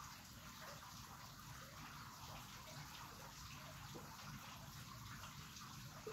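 Near silence: faint, steady background noise with no distinct sound.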